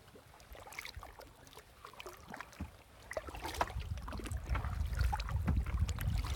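Kayak paddles dipping into river water, with small splashes and drips. A low rumble builds from about three seconds in.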